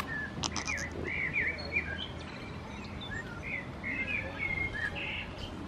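Small songbirds chirping and warbling in a string of short up-and-down calls, with a few faint clicks about half a second in.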